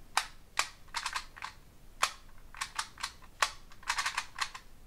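Rubik's Clock being worked quickly: sharp plastic clicks as its pins are pressed and its dials turned, some single and some in quick runs of several clicks.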